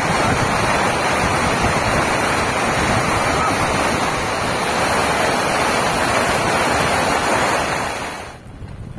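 Fast, muddy floodwater rushing and churning in a steady, loud wash; it cuts off abruptly about eight seconds in.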